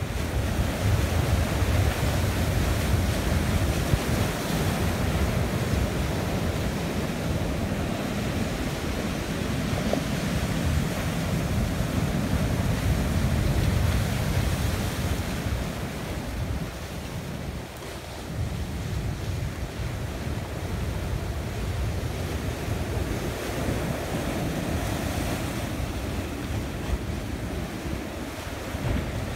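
Sea surf breaking and washing over rocks, a continuous rushing roar with a heavy low rumble, with wind buffeting the microphone.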